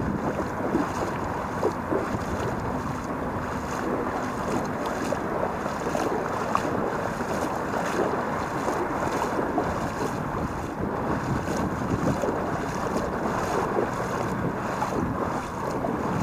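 Steady rush of water flowing over a shallow, rocky river bed, with wind buffeting the microphone.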